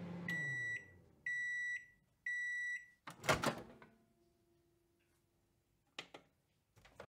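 Microwave oven finishing its cycle: the running hum winds down, then three high beeps of about half a second each. A loud clunk follows as the door latch pops open, then a few light clicks near the end.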